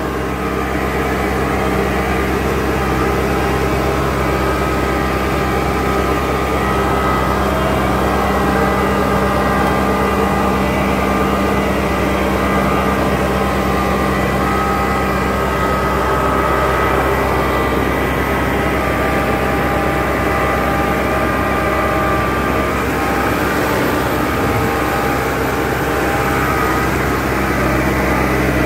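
Case 100 HP tractor's diesel engine running steadily at a constant speed, heard from on board the tractor as it drives through a flooded paddy field.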